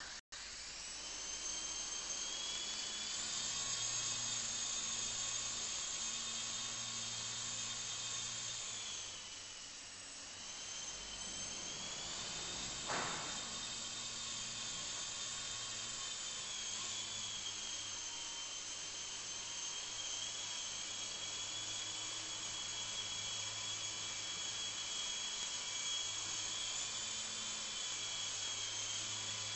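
ESKY Big Lama coaxial electric RC helicopter running and flying, its motors and rotors giving a steady high-pitched whine. The whine drops in pitch and loudness about nine seconds in, then climbs back up. A single short knock about thirteen seconds in.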